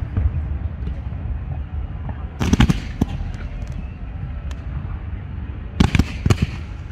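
Fireworks display going off: a steady low rumble with scattered crackles, broken by two clusters of sharp bangs, about two and a half seconds in and again near the end.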